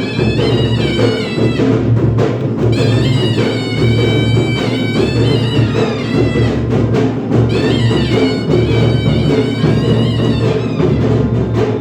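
Dhangari folk music: heavy drums beating steadily, with a high melody line stepping and wavering over them.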